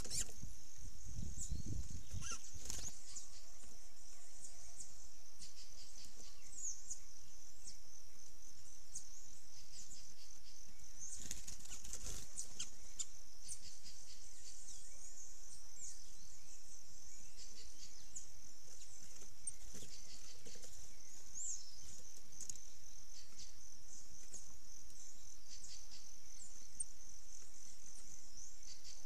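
Songbirds' wings flapping as they fly onto and off a feeder table, near the start, about two and a half seconds in and again around eleven to twelve seconds in. A steady high insect drone runs underneath.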